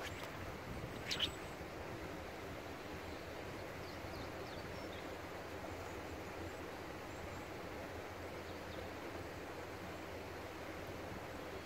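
Steady outdoor background hiss with a short sharp swish about a second in, and a few faint high chirps around the middle.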